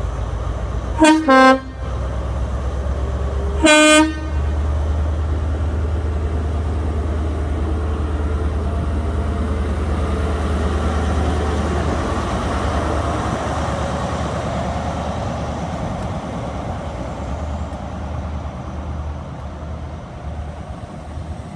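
Class 43 HST power car sounds its horn twice, two short blasts a few seconds apart, the first stepping down from a higher to a lower note. Its MTU diesel engine then rumbles steadily as the train pulls away, and the Mark 3 coaches roll past, the sound slowly fading.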